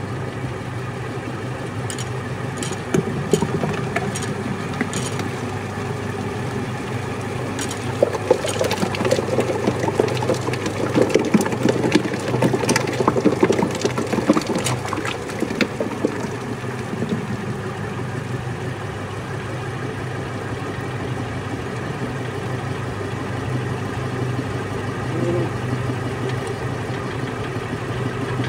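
Motor-driven paddle mixer running steadily as it churns thick henna paste in a drum, a constant machine hum. Irregular clicks and rattles come and go over it, busiest through the middle.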